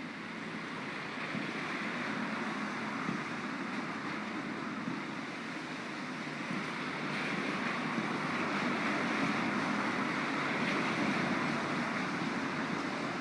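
Steady rain falling, a continuous hiss with no distinct pops.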